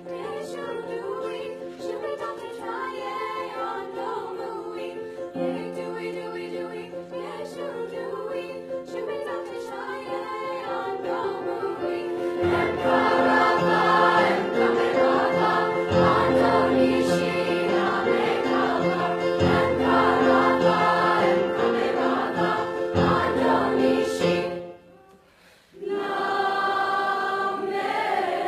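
A mixed youth choir singing a Serbian folk song. The choir is fairly soft over held notes at first and grows fuller and louder about halfway through. Near the end it breaks off for a moment, then comes back in.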